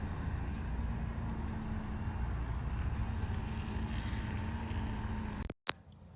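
A vehicle running: a steady low rumble with a steady hum. It cuts out suddenly about five and a half seconds in, followed by a sharp click.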